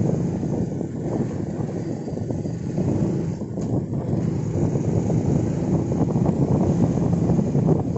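Motor scooter riding along the road with a steady rumble, with wind buffeting the microphone.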